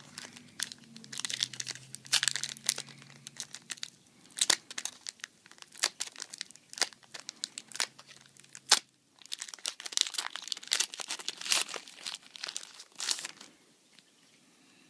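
Foil booster-pack wrapper crinkling and tearing as a pack of trading cards is ripped open, in many short, sharp crackles that die away near the end.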